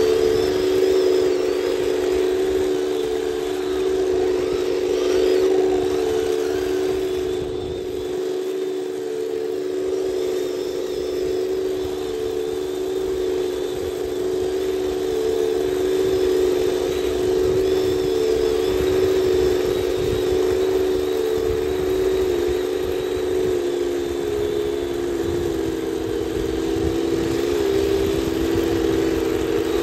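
Heng Long 1/16 Panzer IV F-2 RC tank driving through sand: a steady engine-like drone from the running tank that dips in pitch a few times near the end.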